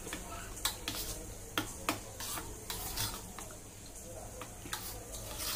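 A spoon stirring thick yogurt with chopped tomato, onion and green chilli in a steel bowl: a wet, squelchy mixing sound with irregular light clicks of the spoon against the bowl.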